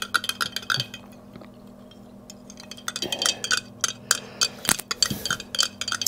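A spoon clinking against a cup while powdered kava is stirred into coconut water: a run of light clinks, a pause of about two seconds, then more clinking.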